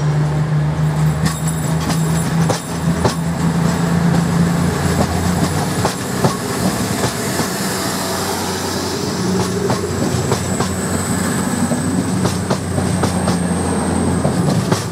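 East Midlands Trains Class 222 Meridian diesel multiple unit pulling out and running past: a steady drone from its underfloor diesel engines, with clicks of the wheels over the rail joints. A thin high whine joins in about halfway through.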